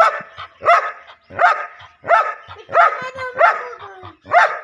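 A large dog barking aggressively with its teeth bared, about seven loud barks at an even pace of roughly three every two seconds.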